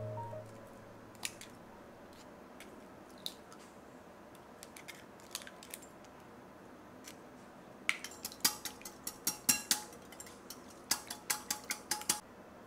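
Eggs being cracked into a glass bowl and beaten: a few scattered sharp taps and clicks, then two spells of quick clicking of a utensil against the glass bowl, about five clicks a second, as the eggs are whisked.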